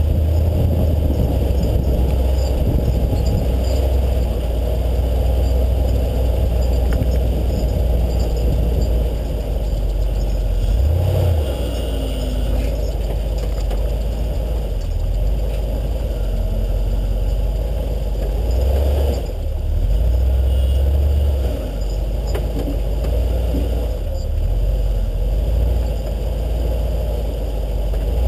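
A 4x4's engine running while driving off-road, its engine speed rising and dropping several times.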